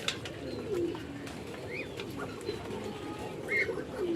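A flock of farm birds calling over one another: a continuous mass of short low calls, with a few brief higher chirps about two seconds in and near the end.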